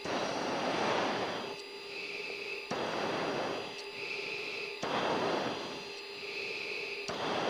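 Heavy breathing in an F-16 pilot's oxygen mask, heard over the cockpit intercom: four long rushing breaths about two seconds apart during a max-performance climb. A faint steady intercom hum runs underneath, and short high blips fall between the breaths.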